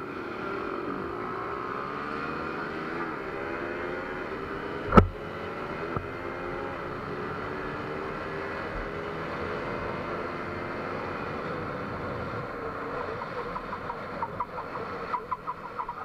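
Single-cylinder Bajaj Pulsar motorcycle engine accelerating hard on a drag run, its pitch climbing and dropping with each gear change, heard from the bike itself with wind on the microphone. There is one sharp thump about five seconds in. Near the end a string of sharp cracks comes as the bike slows.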